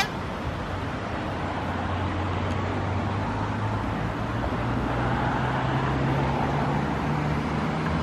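Steady road traffic with a vehicle engine's low hum, its pitch slowly rising over the second half.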